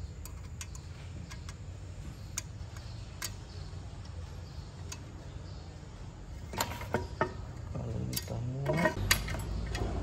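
Light metal ticks and clicks of a hex key turning a bolt in a steel seat-adjustment bracket, scattered at first, then louder clinks of the tool and bracket in the last few seconds, over a steady low hum.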